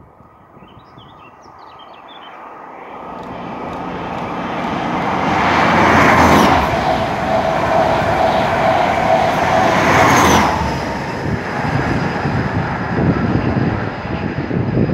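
A High Speed Train (InterCity 125) with a Class 43 diesel power car at each end, approaching at speed and passing close by. The noise builds steadily and peaks as the leading power car passes about 6 s in. A steady hum follows as the coaches go by, the trailing power car brings a second peak about 10 s in, and then the rumble fades as the train recedes. A few birds chirp faintly at the start.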